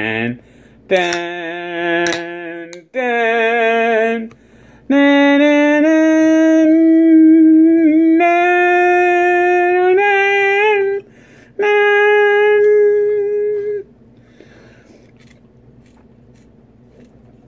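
A man's voice singing a wordless tune: a series of long held notes that climb step by step in pitch, with a wobble on one note, ending about 14 seconds in.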